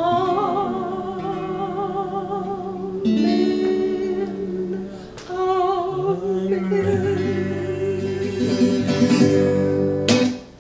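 A woman and a man singing long held notes with vibrato together over a strummed acoustic guitar, the closing notes of a folk song. The music stops sharply about ten seconds in.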